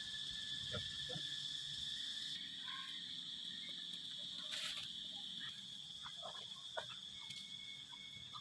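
Steady high-pitched drone of insects, with a few faint short clicks and rustles over it.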